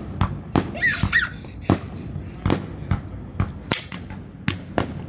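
Fireworks going off in a string of irregular sharp bangs, about a dozen in a few seconds.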